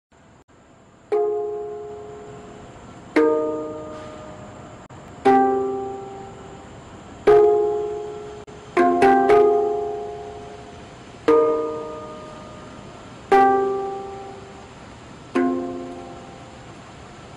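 Music: slow chords struck about every two seconds, each ringing out and fading before the next, with two quick chords close together about nine seconds in.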